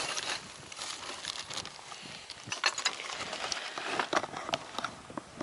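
Irregular scrapes, clicks and light knocks of someone shifting about on a roof of curved terracotta tiles, close to the microphone.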